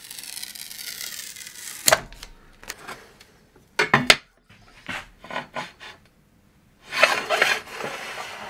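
A steel rule knocking a few times against a mitre saw's metal fence, then scraping along it near the end.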